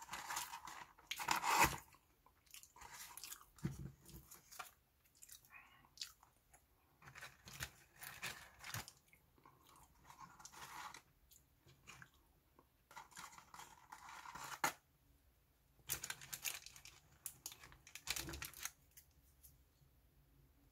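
Close-miked crunchy chewing of fast-food burger and fries, in irregular bursts, mixed with the crinkle of paper food wrappers and a plastic ketchup sachet being handled and torn open.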